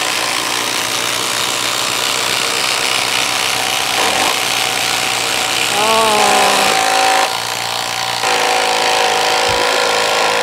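Two 12-volt cordless impact drivers, a DeWalt and a Milwaukee M12, hammering at full speed side by side as they drive fasteners. The steady loud rattle dips briefly about seven seconds in.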